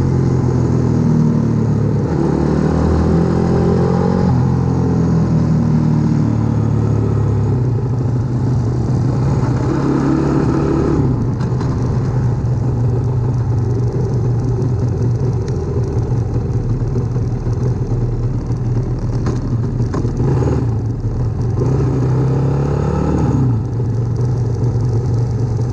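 Onboard sound of a CW 140 pit bike's single-cylinder four-stroke engine being ridden hard on track, the engine note repeatedly rising under acceleration and dropping as the throttle is eased.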